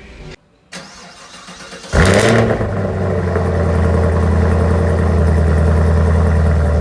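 A Chevrolet car engine starting about two seconds in, with a short rev flare that settles into a steady idle.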